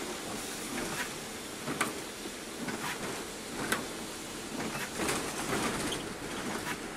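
Interior of a Scania K360 coach bus driving on a wet road: a steady running and tyre hiss with irregular sharp rattles and knocks from the cabin every second or two.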